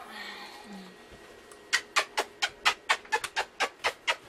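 Small dog yapping in a fast run of about a dozen short, sharp barks, around four a second, starting a little under halfway in. The dog is freaking out, upset by the noise.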